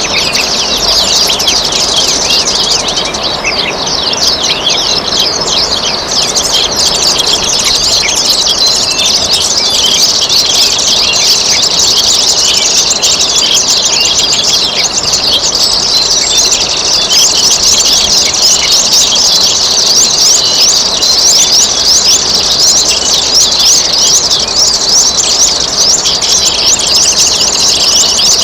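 Dense chorus of many small songbirds chirping rapidly without pause, over a steady trickle of running water.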